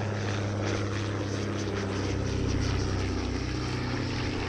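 De Havilland DH.89 Dragon Rapide biplane flying past, its two inverted six-cylinder Gipsy engines and propellers running with a steady drone. The engine note dips slightly about three seconds in.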